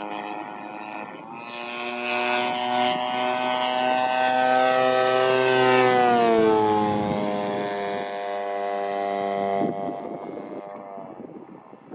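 Engine and propeller of a large-scale radio-controlled Cessna 182 model in flight: a steady engine note that grows louder as it comes close, then falls in pitch as the plane passes about six seconds in. Near the end the engine sound drops away sharply, leaving faint wind noise.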